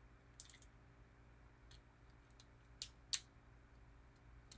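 Faint, scattered clicks of a plastic Transformers Studio Series 84 Ironhide figure's parts being moved and snapped during transformation, with two sharper clicks about three seconds in.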